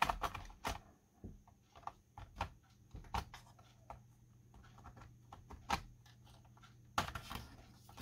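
Irregular plastic clicks and taps from a Dell Inspiron 5570 laptop's palm-rest case being handled and pressed along its edges, with a louder group of clicks about seven seconds in.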